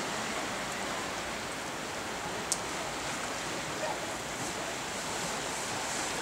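Steady rushing outdoor background noise of the seaside, like distant surf or wind, with one short click about two and a half seconds in.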